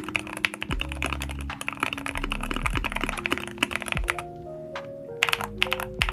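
Fast typing on a mechanical keyboard fitted with Akko Rosewood linear switches: rapid keystrokes that thin out to a few separate presses about four seconds in. Background music plays throughout.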